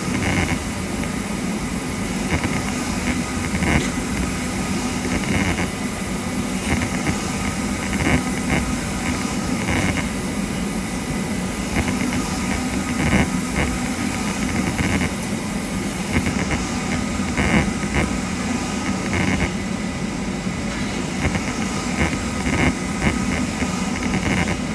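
CNC milling machine running, cutting a jewellery master: a steady mechanical hum with several fixed tones and brief, irregular louder cutting sounds.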